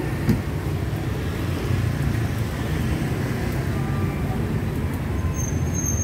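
Steady street traffic noise from motorbikes and scooters, with a short knock about a third of a second in.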